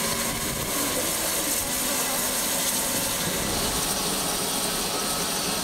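A steady hiss at a standing cogwheel steam locomotive, BFD 9, with steam up while its tank is filled through a water crane hose.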